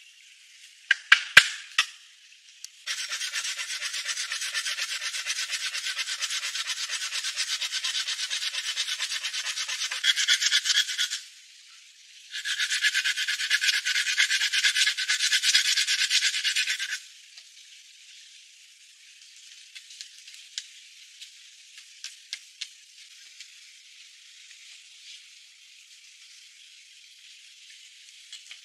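A hand tool rasping rapidly against wood in two long bouts, the first about eight seconds, the second about four and a half, after a few sharp knocks about a second in.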